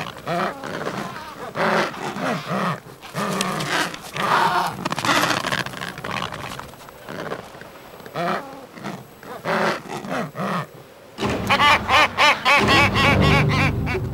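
Adélie penguins giving harsh, growling squawks in short bursts, one after another. About eleven seconds in, a louder, denser stretch of sound begins.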